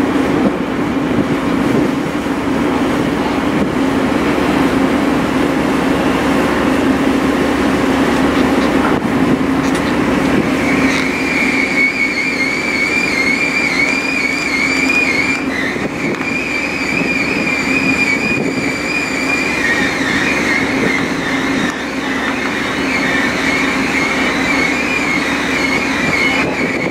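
Steady, loud hum of a large car ferry's engines and deck machinery during unmooring. About eleven seconds in, a high, wavering whine joins and keeps going.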